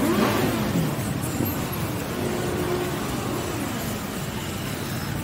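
Motorcycles riding past in a procession: one engine revs up sharply right at the start and falls away, followed by further rising and falling engine notes over a steady din of engines.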